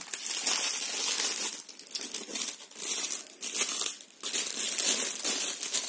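Plastic packaging crinkling and rustling as it is handled and opened, with a few brief lulls.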